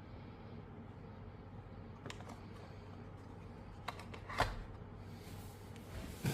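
Packaging being handled during an unboxing: a few light clicks and a short rustle about four seconds in, over a steady low hum, with a hissy rustling building near the end.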